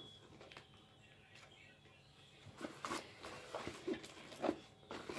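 Faint handling sounds: a quiet stretch, then a scatter of light knocks and rustles from about two and a half seconds in as boxes and packets are moved around inside a makeup tote bag.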